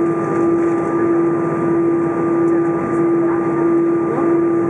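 Airbus A320 cabin noise while taxiing: a steady drone from the idling jet engines and the air conditioning, with a steady humming tone.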